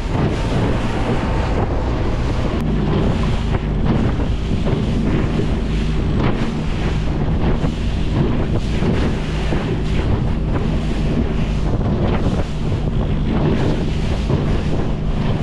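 Outboard motor of a small rigid inflatable boat running steadily under way, a low even hum under heavy wind noise on the microphone and water rushing and splashing along the hull as it runs through swells.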